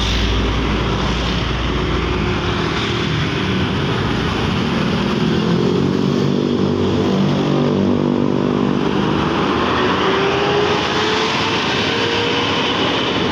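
Diesel engine of a coach bus pulling away and passing close by. It starts as a deep rumble, then settles into a steady engine note. Near the end, passing traffic brings in a rising engine note.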